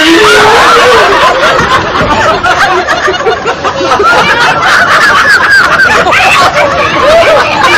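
Many people laughing at once in a loud, continuous mix of giggles, chuckles and cackles.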